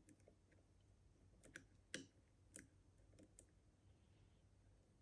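Faint, irregular metallic clicks of lock-picking tools working the levers inside an Easi-T lever lock, about half a dozen over a few seconds.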